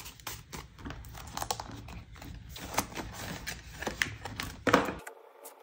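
Paper dollar bills rustling and crinkling as they are handled and tucked into a cash binder, with many small irregular clicks and taps. The low background hum cuts out suddenly near the end.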